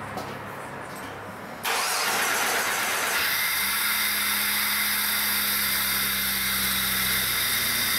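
The Jeep Grand Cherokee's 4.0-litre straight-six cranks and fires about two seconds in, then settles into a steady idle.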